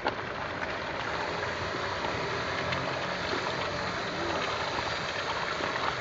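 Water splashing steadily as piranhas thrash at the surface, attacking a hook baited with a piece of hide. A single sharp knock just at the start.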